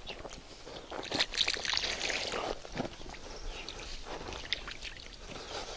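Straw rustling in irregular bursts as it is turned over and rubbed by hand, working the EM solution into it. It is loudest from about one to two and a half seconds in.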